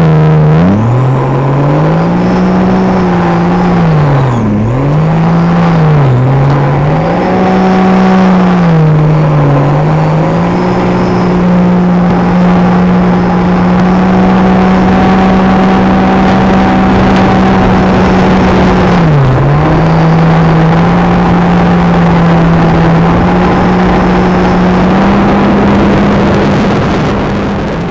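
Jet ski engine running at speed, heard from onboard: the throttle is eased off and opened again several times in the first ten seconds, then held at a steady high cruise with one brief lift about two-thirds through. A steady rushing hiss runs under the engine, and everything fades out at the very end.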